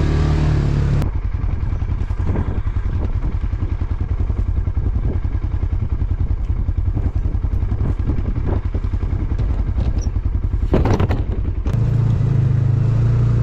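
A vehicle's engine running while it drives over rough, soft field ground, with rattling and knocks from the bumpy ride and a louder jolt near the end.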